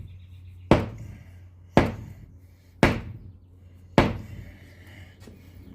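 Four sharp knocks about a second apart: the 3D-printed handle being knocked down onto the steel rod of a flathead screwdriver to seat it.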